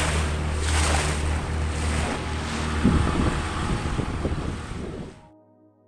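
Motorboat under way at sea: a steady low engine drone under wind buffeting the microphone and water rushing and splashing past the hull, in gusty surges. It cuts off suddenly about five seconds in, and faint music begins.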